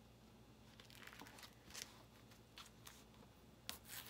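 Faint rustling and crinkling of plastic silkscreen transfer sheets being handled, with a few brief soft crackles, the clearest near the end.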